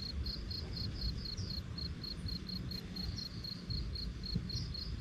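A cricket chirping steadily, about four short high-pitched chirps a second, over a low rumble of strong wind.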